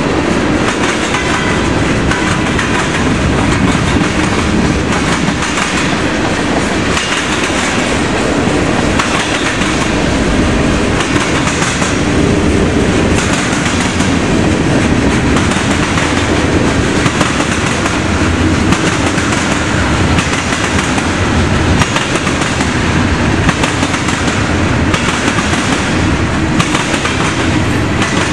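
Freight train of tank cars and covered hoppers rolling past, its car wheels knocking in a steady, uneven run as they pound over a railroad diamond crossing.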